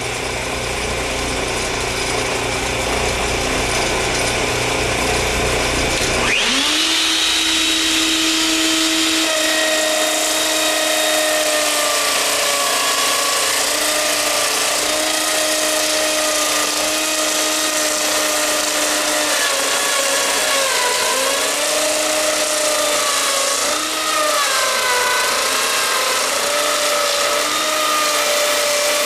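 Homemade router-lathe copier at work. After about six seconds of steady machine noise, a router motor spins up with a quick rising whine. It then runs at a high steady pitch that sags and wavers now and then as it is loaded.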